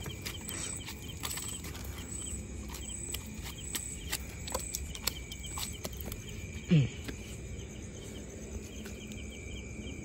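Crickets chirping steadily, with scattered sharp slaps and taps in the first half as a freshly landed mrigal carp flops on concrete steps. About seven seconds in, a brief voice-like sound drops sharply in pitch.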